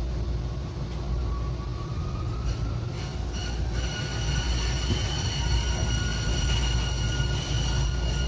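Tokyu Setagaya Line 300 series tram heard from inside the car: a steady low rumble of wheels on rail with the traction motor's whine rising in pitch as it gathers speed. From about three seconds in, a high steady wheel squeal joins the rumble.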